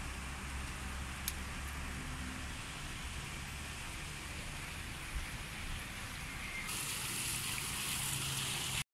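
Steady outdoor background noise, a hiss over a low rumble, with a faint click or two. The hiss grows brighter and louder about seven seconds in, then the sound cuts out abruptly at the very end.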